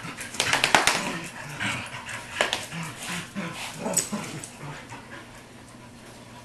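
Two dogs play-fighting on a tile floor: scuffling with a run of sharp clicks in the first second, then a series of short, low vocal sounds from the dogs, getting quieter near the end.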